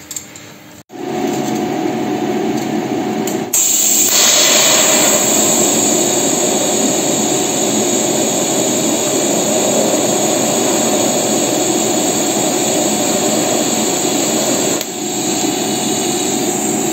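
Electric arc welding of a steel repair panel into a car's front wing seam: a loud, steady frying hiss of the arc that starts about a second in and grows louder a few seconds later.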